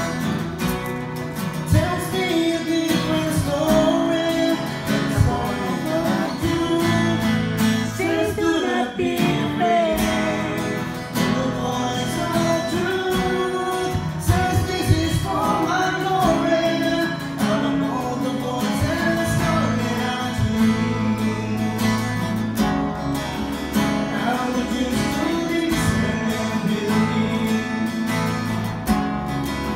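A man singing while strumming an acoustic guitar, a slow live song with the voice rising and falling over steady guitar chords.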